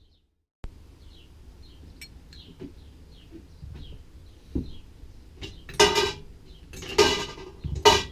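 Small metal carburettor parts clattering and clinking as they are handled and set down, in several short loud bursts about a second apart in the second half; faint bird chirps in the background.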